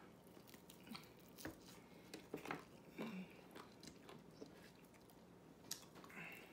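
Faint chewing and biting of a crispy fried chicken wing, with scattered short crunches and mouth clicks.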